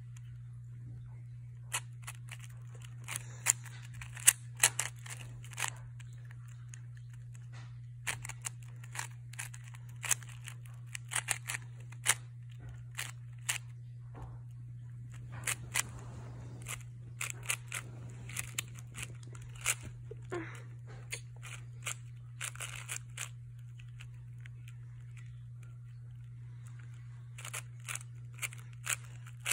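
Layers of a stickerless plastic 4x4 cube being turned in quick runs: rapid clicks and clatters in bursts, with short pauses between them. A steady low hum runs underneath.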